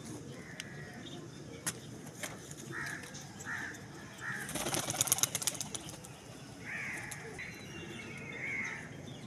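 A hand-held pigeon flapping its wings in a fast flurry for about a second, midway through. Short bird calls repeat in the background, and there are two sharp clicks early on.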